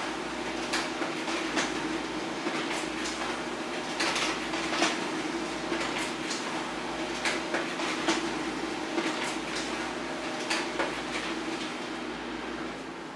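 HP LaserJet Pro M402d laser printer running a duplex print job: a steady motor hum with irregular clicks and rattles of paper being fed, turned and stacked. The clicking stops and it goes quieter near the end.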